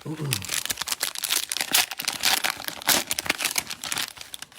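Cellophane-wrapped trading-card packs and their plastic packaging crinkling and rustling as they are pulled out of the box by hand, in quick irregular crackles.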